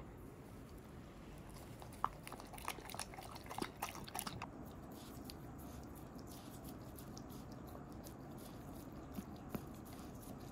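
Elderly golden retriever eating a soft snack from a bowl: faint wet smacks and clicks of her mouth, clustered about two to four seconds in, then only now and then.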